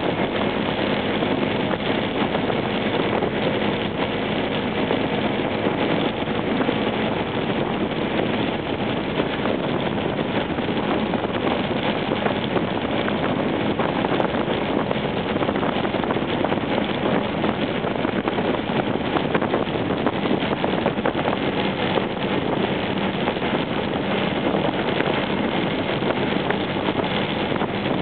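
Honda PCX scooter riding steadily at cruising speed: wind rushing over the microphone, with the single-cylinder engine droning underneath.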